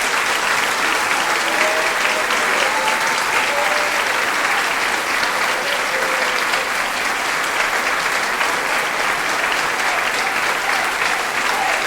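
Audience applauding, a dense, steady wash of many hands clapping that neither builds nor fades.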